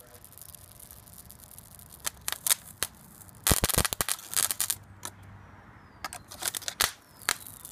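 High-current arcing where a steel strip touches the terminals of an arc-welder transformer rewound with railway cable to deliver thousands of amps. Sharp crackling snaps come in bursts, scattered at first, then densest and loudest about three and a half to four and a half seconds in, with another burst near the end.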